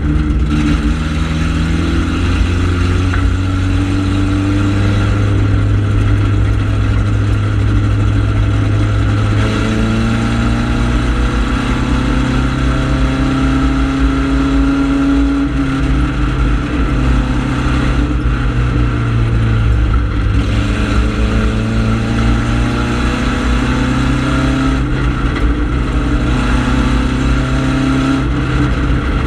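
Four-cylinder ministock race car engine at racing speed, heard from inside the cockpit, its pitch repeatedly climbing under throttle and then dropping off as the driver lifts for the turns.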